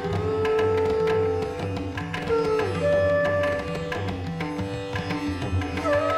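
Instrumental background music: a string melody of long held notes that slide in pitch, over a steady repeating drum pattern.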